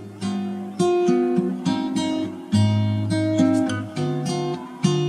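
Background music: an acoustic guitar plucking and strumming chords, each struck and left to ring.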